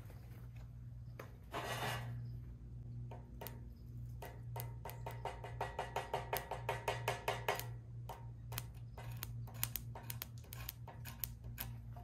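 A 1/16-inch 6013 welding rod, powered by a car battery through jumper cables, tapped and scratched again and again on a steel welding table to strike an arc that will not hold: a run of quick metallic clicks, several a second, thickest around the middle.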